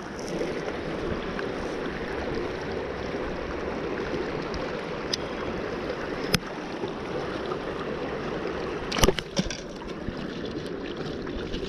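Shallow river current rushing steadily over rocks, with a few sharp clicks and a louder cluster of knocks about nine seconds in.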